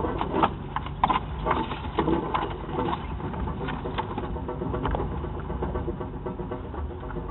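4x4 engine running at low revs, heard from inside the cab, as the vehicle crawls slowly over a rocky trail. Irregular clicks and knocks come thick in the first three seconds and thin out after about five.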